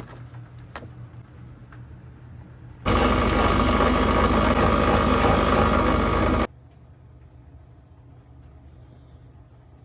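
A power tool runs loudly and steadily for about three and a half seconds, starting and stopping abruptly, with a steady hum under a hiss. Around it are quieter stretches with a few light clicks near the start.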